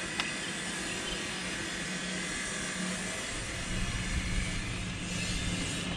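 A steady low hum under a wash of outdoor noise, growing slightly rougher in the low end near the end.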